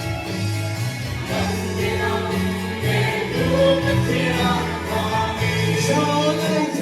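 Music with a choir singing, in the manner of gospel or hymn music.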